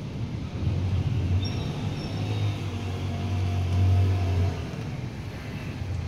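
Distant thunder rolling in a low rumble that builds to its loudest about four seconds in, then eases off.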